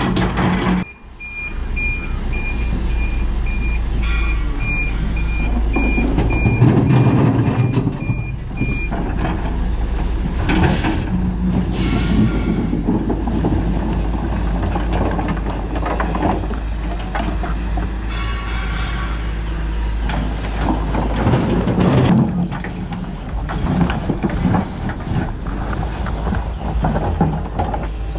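Heavy diesel machinery running steadily, with a reversing alarm beeping about twice a second through the first third. About ten seconds in come two short bursts of hissing.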